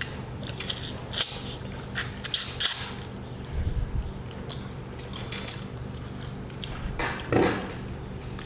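Eating sounds as grilled chicken is torn and chewed by hand: a run of sharp wet clicks and smacks over the first three seconds, a low thud, and a louder smacking burst about seven seconds in.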